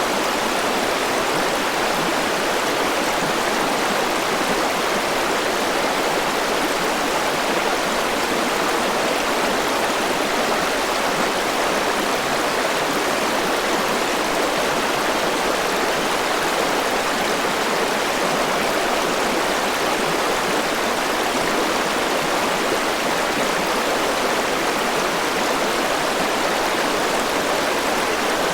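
Mountain river rushing over rocks: a steady, unbroken flow of water.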